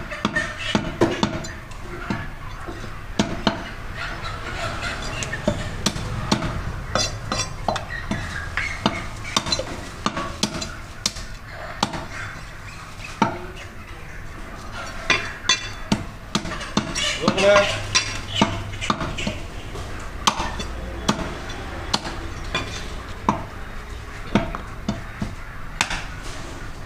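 Cleaver chopping mutton head meat and bone on a wooden chopping block: a long run of irregular knocks and sharp cracks.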